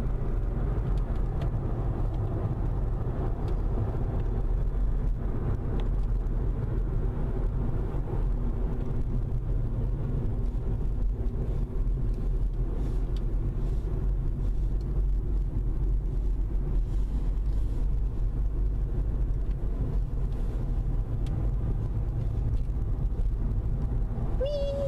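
Steady engine and tyre rumble of a car driving, heard from inside the cabin. A short falling tone is heard near the end.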